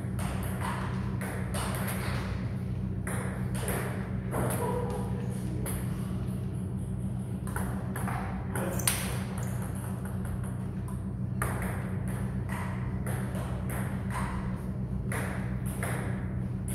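Table tennis ball clicking repeatedly off bats and table during play, in an irregular string of sharp ticks with a short lull a little past the middle. A steady low hum runs underneath.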